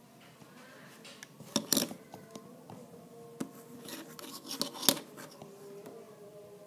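Lego minifigures and their small plastic parts being handled on a hard surface: scattered light plastic clicks and taps, the sharpest a pair about a second and a half in and one about five seconds in.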